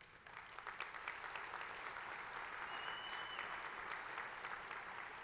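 Audience applauding: a dense patter of many hands clapping that starts just after the opening, holds steady, and fades toward the end.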